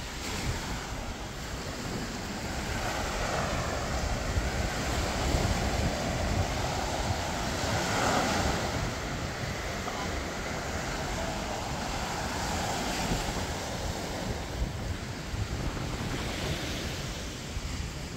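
Small ocean waves breaking and washing up the sand, swelling and fading about every four to five seconds, with wind buffeting the microphone as a low rumble underneath.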